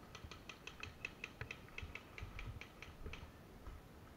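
Faint airsoft gunfire from other players: a quick, even string of sharp clicks, about six shots a second, lasting about three seconds before it stops.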